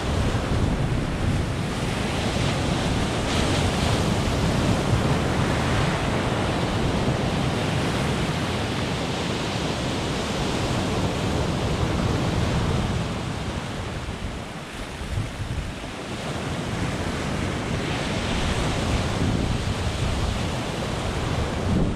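Sea surf breaking and washing up a pebble beach, with wind on the microphone. The surge eases for a couple of seconds a little past the middle, then builds again.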